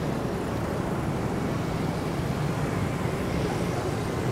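Steady hum of outdoor road traffic, even throughout, with no single vehicle or event standing out.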